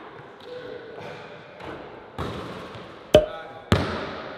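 Basketball hitting a hardwood gym floor: three hard, uneven thuds, the first about two seconds in and two more close together near the end, each echoing in the large hall.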